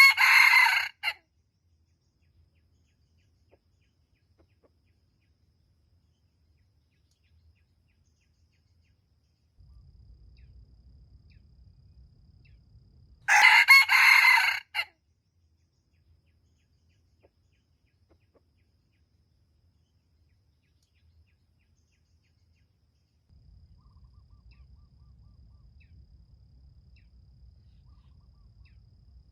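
Junglefowl rooster crowing twice: one short crow right at the start and another about 13 seconds in, each lasting about a second and a half.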